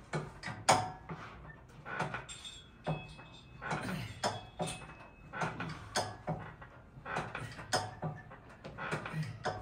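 Lying leg-curl machine clunking and knocking with each repetition of a hamstring curl, about once a second, as the weight stack and lever arm rise and fall. A thin high squeak runs for about two seconds in the middle.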